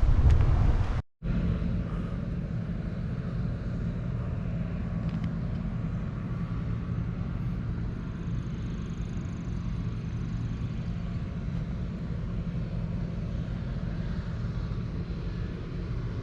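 Steady low rumble of wind on the microphone and tyre noise from a bicycle rolling along a trail. The recording drops out to silence for a moment about a second in.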